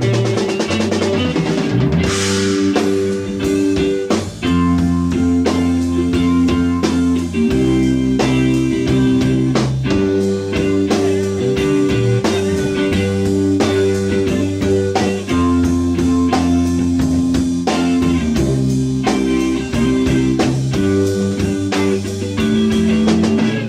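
Background music: guitar-led rock-blues with a steady drum-kit beat.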